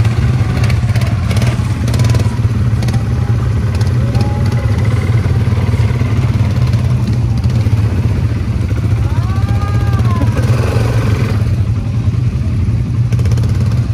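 ATV quad-bike engine running steadily while riding, an even low drone throughout.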